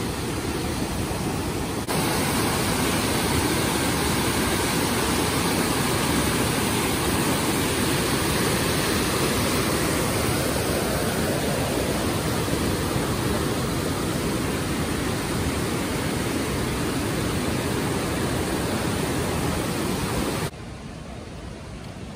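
Steady rushing of water, an even roar across all pitches, which jumps in level about two seconds in and drops sharply near the end as clips change.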